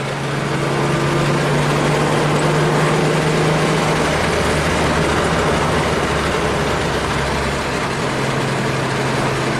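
The Ford Probe's 3.0 L Vulcan V6 running at a steady pace on the road, heard from inside the cabin with tyre and road noise. The engine note eases slightly about three-quarters of the way through.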